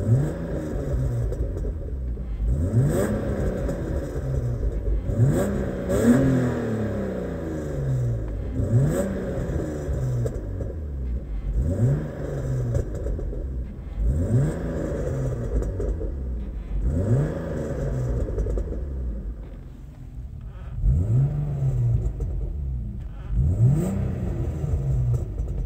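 A BMW 325i E36's 2.5-litre straight-six is revved about nine times, the engine note rising and falling every few seconds, with some short popping sounds ("pup pups") among the revs. The owner puts these to a bad air flow sensor.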